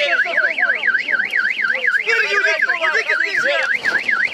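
An electronic alarm siren wailing: a loud, high tone rising and falling about four times a second, unbroken, like a car alarm.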